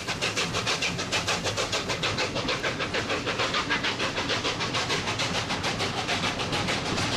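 Steam exhaust of LNER A4 Pacific No. 4464 Bittern, a three-cylinder locomotive, beating rapidly and evenly at about six beats a second as it hauls its train away, over the low rumble of the coaches on the rails.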